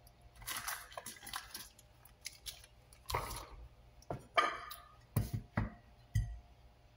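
Items being handled on a kitchen counter: a rustle of plastic packaging early on, then a series of short knocks and clatters as a plate and other items are set down on the countertop.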